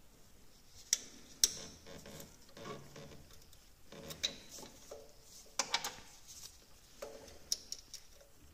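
Sharp, scattered metal clicks and clinks, about half a dozen, of small hand tools and parts as the worn contact breaker points are lifted out of a classic Fiat 500's distributor.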